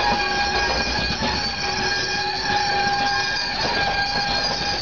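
Passenger railcars rolling past, wheels rumbling and clattering over the rails with a steady high-pitched squeal.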